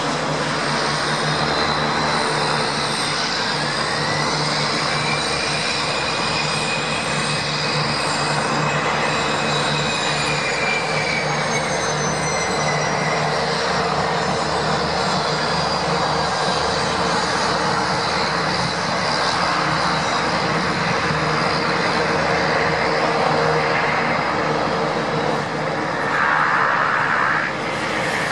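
Aircraft engines running on an airfield: a steady drone with a high whine that rises and then falls in pitch, and a brief louder rush near the end.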